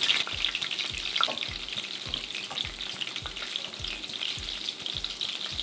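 Shrimp-filled corn tortilla tacos frying in hot oil in a stainless steel skillet: a steady sizzle with fine crackling.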